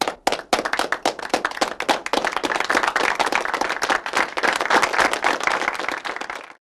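Applause: many hands clapping, thickening after the first second or so, then cutting off abruptly near the end.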